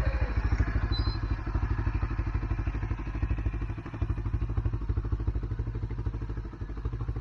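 A vehicle engine idling steadily, with a rapid, even pulse.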